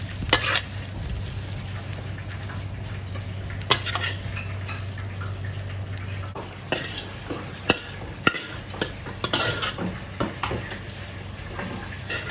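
Metal utensils clinking and scraping against a pan and plate, with scattered sharp clicks over a light frying sizzle. A steady low hum under it stops about halfway through.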